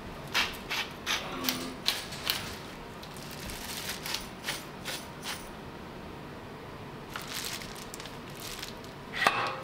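Hand-twisted pepper mill grinding black pepper, a run of short crunchy ratcheting turns about every half second, in two spells. A louder rustle near the end.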